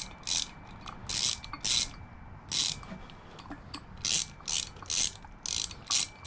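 Hand socket ratchet clicking in about nine short back-swings as 8 mm bolts are run down evenly on a water pump's thermostat housing.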